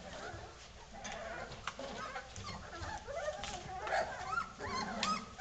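A litter of four-week-old Vizsla puppies whining and yelping, many short cries overlapping, growing more frequent from about two seconds in.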